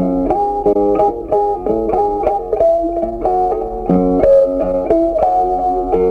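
Background music: a guitar playing a melody of short plucked notes, several a second.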